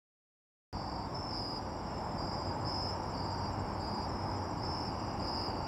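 Dead silence, then a little under a second in, crickets start chirping in a steady repeating pulse, about two chirps a second, over a low, even background hum.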